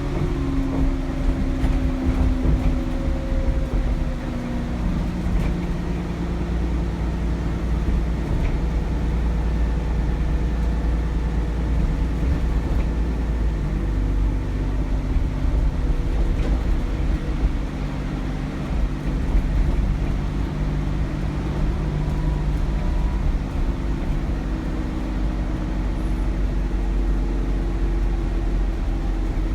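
Cummins ISBe diesel engine of an Alexander Dennis Enviro400 double-decker bus pulling along, heard from inside the bus: a steady low rumble whose engine note falls over the first few seconds and shifts again a few times, with a thin steady turbocharger whistle above it.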